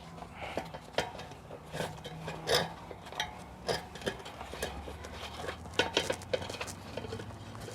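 Hands working a rubber inner tube into a small bicycle tire on its wheel: scattered rubbing, light knocks and small clicks of handling.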